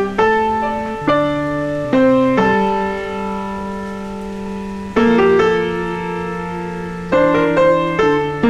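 Slow, gentle piano music: chords struck every second or two, each left to ring and fade, with a quieter stretch in the middle before several chords come closer together near the end.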